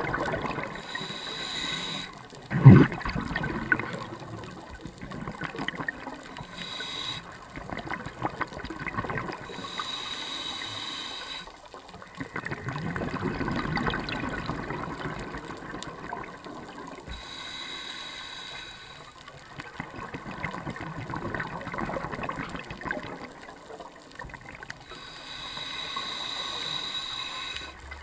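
Scuba diver breathing through a regulator underwater: several hissing inhales, each followed by the bubbling rumble of the exhale. A single sharp knock comes about three seconds in.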